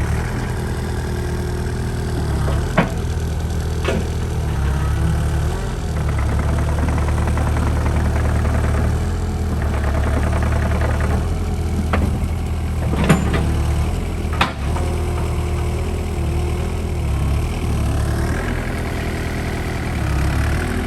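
Bobcat E85 excavator's diesel engine running at idle, a steady low hum that steps up and down in level at times, with a few sharp clicks or knocks.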